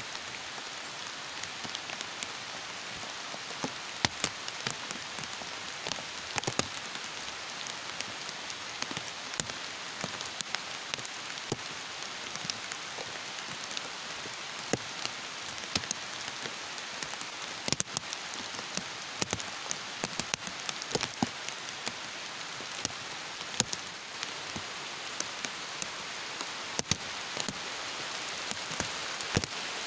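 Heavy rain falling steadily, with frequent sharp drops striking close by.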